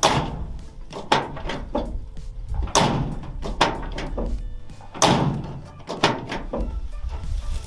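Toyota Tundra tailgate opened and slammed shut several times, making about six sharp metallic clunks as the newly replaced latch releases and catches. This is a function test of the new latch, and it works.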